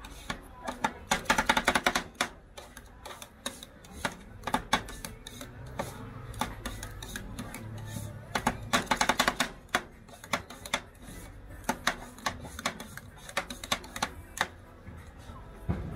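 Two metal spatulas chopping and scraping ice cream on a cold steel plate for rolled ice cream: sharp metallic taps throughout, with two fast rattling flurries, one about a second in and one about halfway through.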